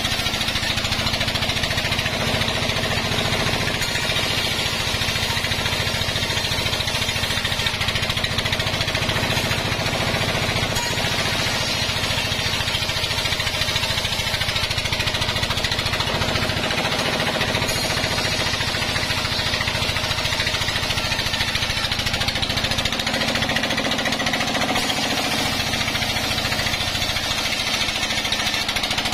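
Band sawmill running steadily while a log is fed through its blade, a continuous machine noise with a fast, even chatter underneath.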